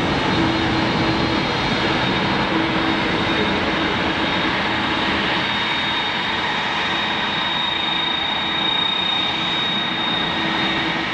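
Jet noise of a Boeing 737-500 climbing out after take-off: the CFM56-3 turbofans give a steady rumble with a thin high whine held on top, fading a little toward the end.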